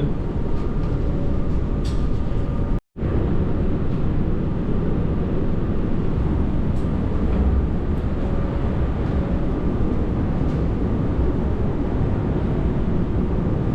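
Steady low rumble of a car ferry's engines and machinery, with a faint steady hum on top. The sound cuts out completely for an instant about three seconds in.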